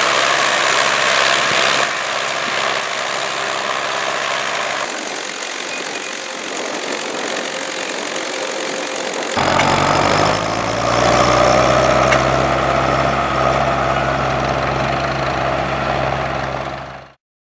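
Tractor diesel engines working in a field: an Ursus C-360 pulling a Poznaniak seed drill and a Case IH 745XL pulling a cultivator, heard across several cuts. The engine hum is steadiest and strongest in the second half, and the sound cuts off suddenly near the end.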